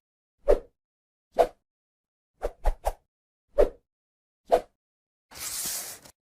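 Edited intro sound effects: seven short pops with dead silence between them, three in quick succession in the middle, then a brief hissing swish near the end.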